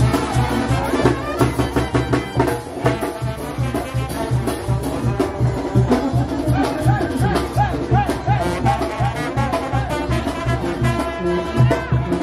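Live brass band playing dance music for a street procession, with a steady beat from bass and drum under trumpets. Midway through, a horn plays a wavering run of repeated notes.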